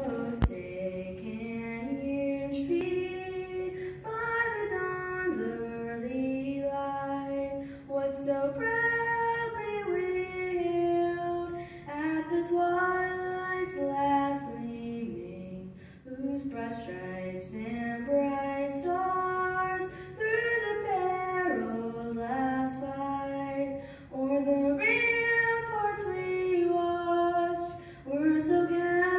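A woman singing solo and unaccompanied, a slow melody of long held notes in phrases with short breaks between them.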